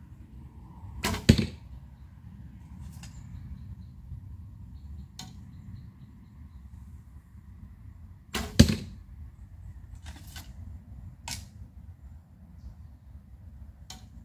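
Bearpaw Penthalon Hopi one-piece recurve bow (35 lb at 28 in) shot twice, about seven seconds apart: each release is a sharp thump of the string. Lighter clicks come in between.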